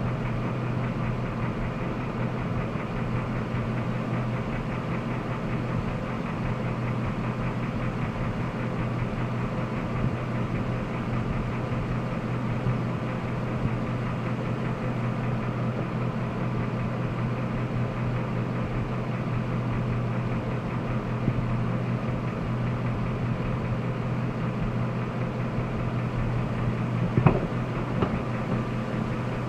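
Jasper remanufactured 5.3-litre V8 idling steadily, carrying an unidentified noise whose source is unknown. A single sharp click sounds near the end.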